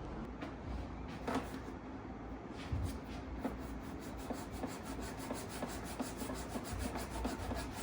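Hand sanding of body filler on a fiberglass RC boat hull: sandpaper rubbed back and forth in quick, even strokes, about four a second.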